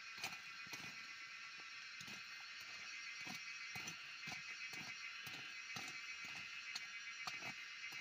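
A hand hoe chopping and scraping into soil while weeding, in steady strokes about twice a second, under a steady high-pitched drone of insects.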